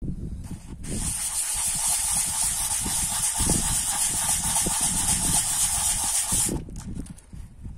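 Small steel blade rubbed by hand across a sanding disc, a steady gritty hiss that starts about a second in and stops near the end.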